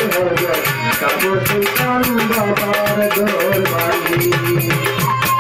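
Live Baul folk music in a passage between sung lines: fast, steady drum and rattling percussion under a winding melody line.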